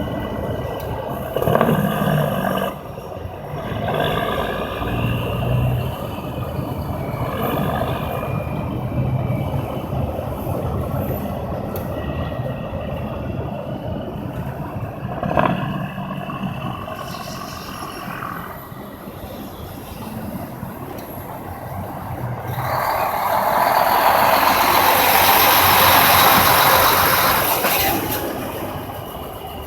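Heavy trucks passing on a highway: diesel engines and tyre noise rise and fall with each pass, with a sharp knock about halfway through. A loud hissing rush builds over the last several seconds and then fades.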